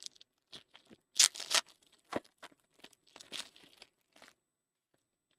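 A trading-card pack's wrapper being torn open and crinkled by hand, a run of sharp crackling rips, loudest about a second in, dying away near the end.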